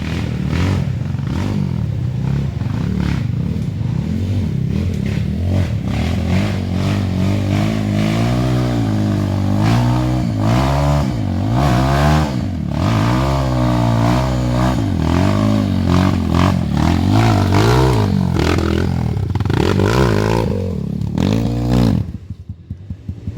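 Dirt bike engine revving up and down over and over as it is ridden along rough trail, with clattering. Near the end it drops back to a low, even idle.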